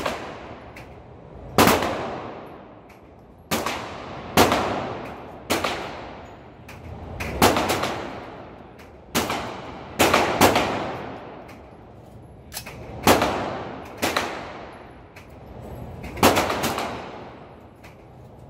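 Single gunshots from a 7.62×39mm AR pistol, about a dozen at uneven intervals, some in quick pairs. Each shot is a sharp crack with a long echoing tail from the indoor range.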